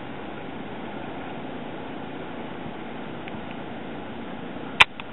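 Steady hiss of wind and water, with one sharp click near the end.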